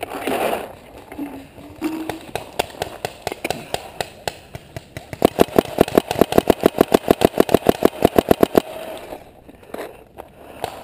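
Paintball marker firing a rapid string of shots, about nine a second for some three seconds, after a few slower scattered shots.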